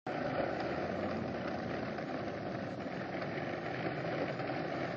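A lawn mower engine running steadily.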